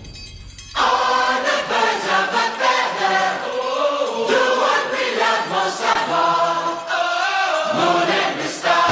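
Background music with choir-like singing voices, coming in strongly about a second in.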